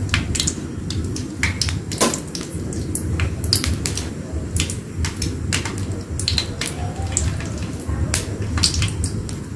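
Dried shrimp frying in hot oil in an aluminium wok: irregular sharp crackles and pops, a few a second, over a low steady rumble.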